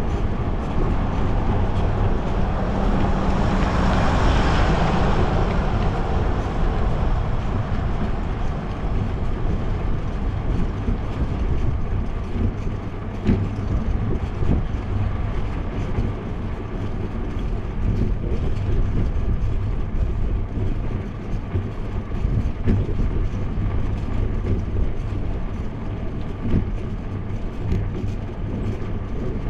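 Wind buffeting a GoPro's microphone while cycling, with steady road and tyre noise and scattered small knocks from bumps in the cracked asphalt. A louder rushing swell rises and fades a few seconds in.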